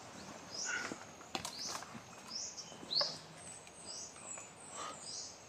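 A bird repeating short, high chirps about once or twice a second, with a few sharp clicks and taps mixed in.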